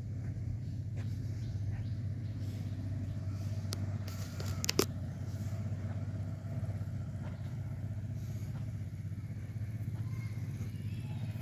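A motor vehicle engine running steadily with a low, even hum, with a sharp click a little under halfway through.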